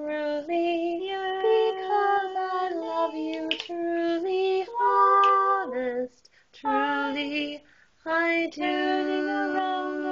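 Women singing a slow song unaccompanied, holding long notes. There are short breaks about six and eight seconds in.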